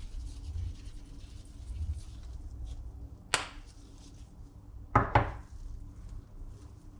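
Light rustling of raw eggplant slices being handled in a metal bowl, then a sharp knock about halfway through and two quick knocks about a second and a half later, short ringing hits of a metal bowl and a shaker against a stainless steel sink.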